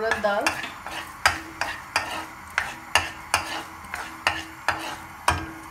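Spoon stirring urad dal in hot oil in a nonstick pan. The spoon knocks and scrapes against the pan about three times a second, with a light sizzle from the oil.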